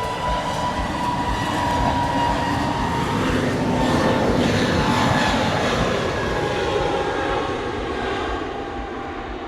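Jet airliner flying low past, its engine roar swelling to a peak about four seconds in and then fading, the engine whine dropping in pitch as it goes by.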